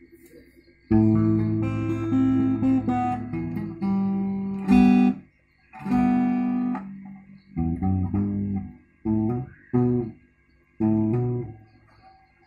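Acoustic guitar fitted with a cheap pickup, played through a small amplifier speaker: strummed chords ring for about four seconds, then come a handful of short, clipped chords with silent gaps between them. The tone is clean but the pickup's output is weak, even with the volume turned all the way up.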